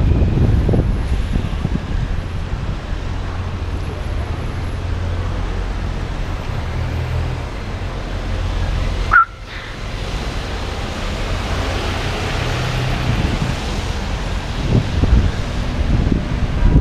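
City road traffic heard from a bicycle on a wet night: the steady low rumble of nearby vehicle engines over road hiss, with a short, sharp high beep about nine seconds in. A hissing swell follows, like a vehicle passing on the wet road.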